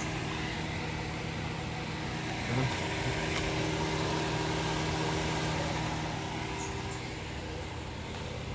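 A Daihatsu Terios's 1.5-litre four-cylinder petrol engine idling steadily.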